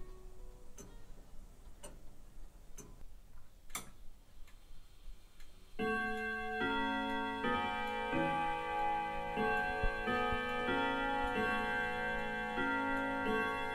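Antique longcase clock ticking about once a second. About six seconds in, music of sustained ringing notes comes in, and the ticking carries on under it.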